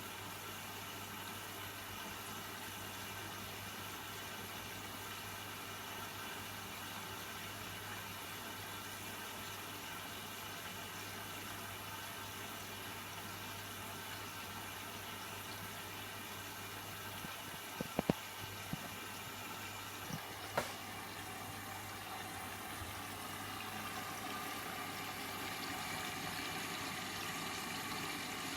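Washing machine on a synthetics warm-wash cycle, with water running through it over a steady low hum. A few sharp clicks come about two-thirds of the way through, and the sound grows slightly louder near the end.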